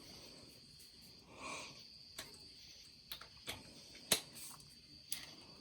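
A handful of faint, sharp clicks and taps of hand tools and parts on metal, the loudest about four seconds in, as the stopped engine is worked on.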